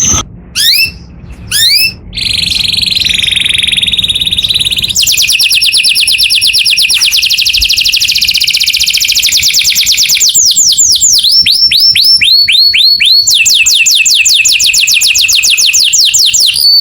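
Canary singing loudly and continuously: long, very fast trills of repeated notes alternate every few seconds with slower series of descending whistled sweeps.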